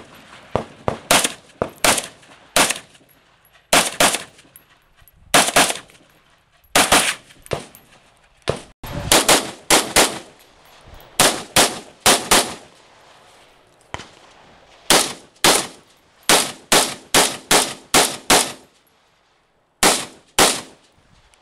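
Semi-automatic rifle fired rapidly, dozens of sharp shots in pairs and quick strings with short pauses between strings.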